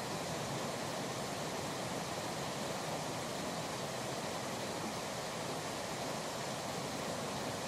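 Steady rushing noise of a river, mixed with wind, with no change in level throughout.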